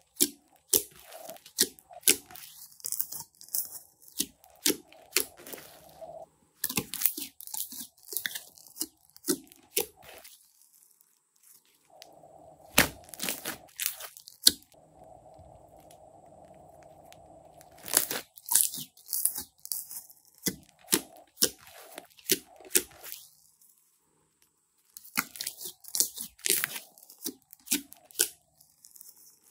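Fluffy slime being kneaded and pressed by hand: irregular bunches of sharp crackles and pops as air trapped in the slime bursts, with a couple of short quiet pauses.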